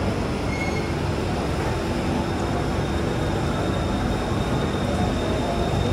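Steady din of a crowded BTS Skytrain station: a low rumble under the noise of many people moving. A faint high whine joins a little after two seconds in.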